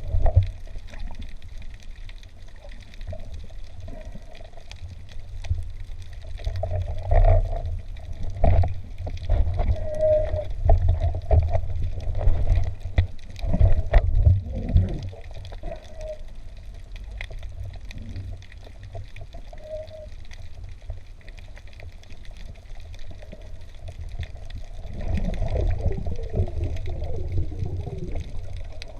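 Underwater sound through a diver's camera housing: a muffled low rush of moving water with bubbling and gurgling, broken by a few sharp knocks in the middle, and growing louder again near the end.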